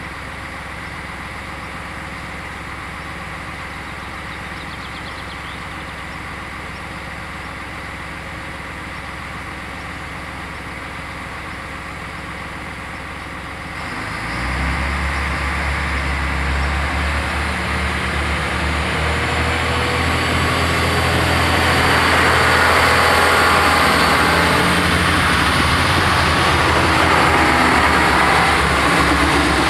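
A steady background hum, then about halfway through the deep drone of a diesel railcar's engine sets in abruptly and grows louder. It is joined by rising wheel-on-rail noise as two coupled SNCF X 73500 TER railcars reach the level crossing near the end.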